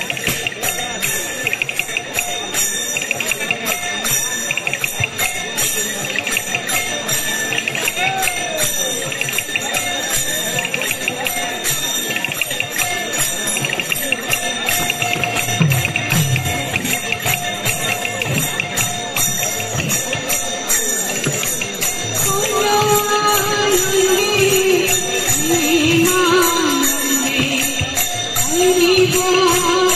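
Kirtan music: small hand cymbals chiming in a fast, steady rhythm over strokes on two-headed barrel drums (mridanga). About two-thirds of the way through, a woman's voice starts singing a melody into a microphone over the instruments.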